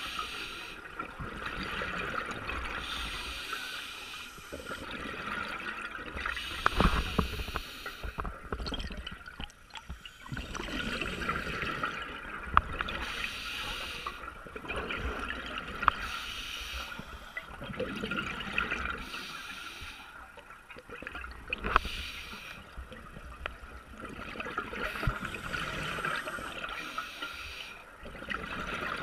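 Scuba diver breathing underwater through a regulator: slow cycles every four or five seconds of a hissing inhalation and a gurgle of exhaled bubbles, with a few sharp clicks.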